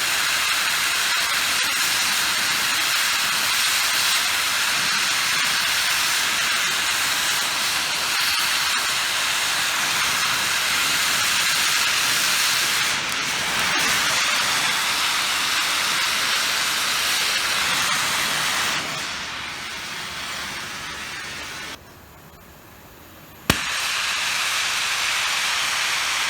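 Oxyhydrogen (HHO) electrolysis torch flame hissing steadily. The hiss weakens toward the end and drops away briefly, then one sharp pop and the hiss comes back.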